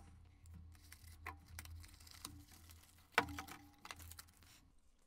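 Faint handling noise from unpacking a cardboard product box: light rustling of card and paper with scattered small clicks and taps, one sharper click about three seconds in.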